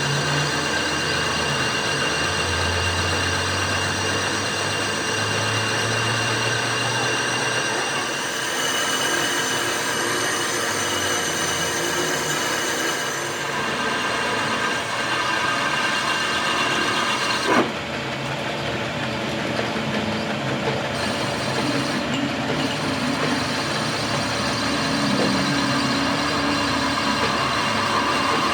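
Steady machinery noise with several steady whining tones, changing character about halfway through, and one sharp click or knock a little past the middle.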